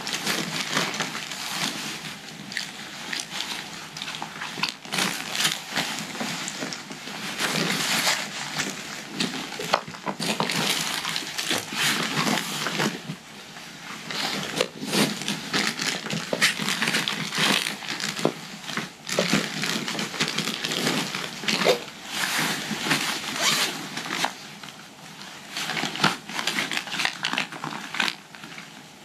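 Nylon stuff sacks and plastic bags rustling and crinkling as gear is pulled out and handled, in uneven bursts of crackle and scrape.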